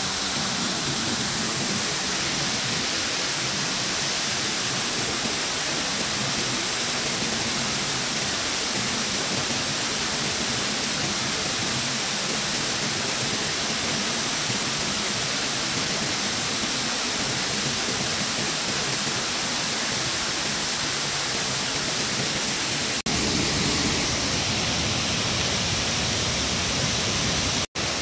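Waterfall: a steady rush of falling water. About 23 seconds in it steps up suddenly to a louder, deeper rush, and it drops out for an instant near the end.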